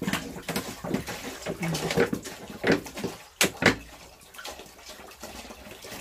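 Water poured into a dog's water bowl, splashing unevenly, with two sharp knocks about three and a half seconds in.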